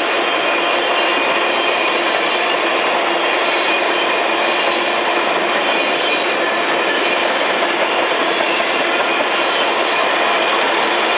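Empty ethanol tank cars of a freight train rolling past, giving a steady, even wheel-on-rail noise with faint high wheel-squeal tones.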